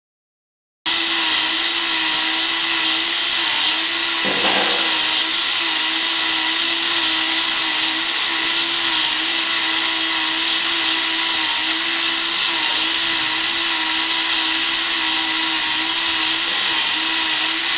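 Small battery-powered electric motor of a model drawbridge running steadily as it winds the deck up, with a constant whir and a steady low hum. It switches on abruptly about a second in.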